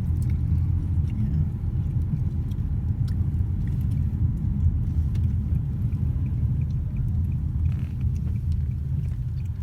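Steady low rumble of a car driving, heard from inside the cabin, with faint scattered ticks over it.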